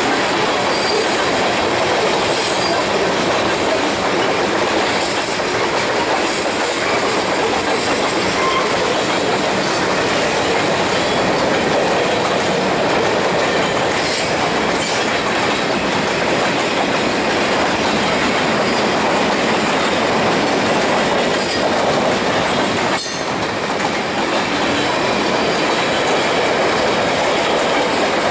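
Freight cars rolling past close by: steel wheels on the rails making a steady clatter and rumble, with faint, brief high wheel squeals now and then.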